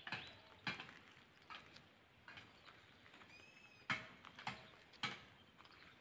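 Faint footsteps on an asphalt road, a step roughly every two-thirds of a second. A brief high chirp about halfway through.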